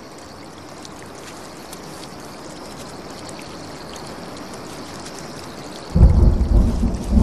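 Steady hiss of light rain, then about six seconds in a loud, low rumble of thunder starts suddenly and rolls on.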